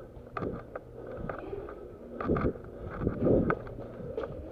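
Footsteps and the clicks and rattle of carried gear of a person moving on foot, with a few low thuds of wind or handling on a body-worn camera's microphone.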